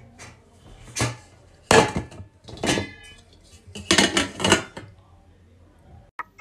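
Stainless steel cooking pot being handled: about five separate metal clanks and knocks spread over a few seconds, some with a short ring.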